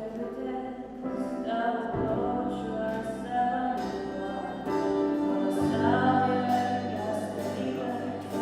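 Music with singing, several voices together over sustained chords that change every second or two.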